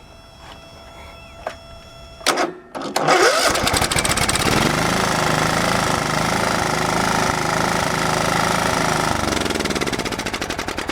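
Kohler Command single-cylinder mower engine cranking briefly and catching about three seconds in, then running steadily. Its revs drop about nine seconds in and the firing beats become slower and more distinct. It starts and runs on a newly fitted ignition coil.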